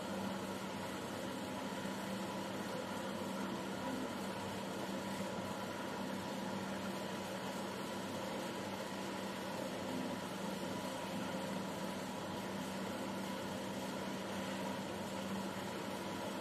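Rotational moulding machine for plastic wheelbarrows running: a steady mechanical hum with a low drone and a fainter higher tone over it, unchanging throughout.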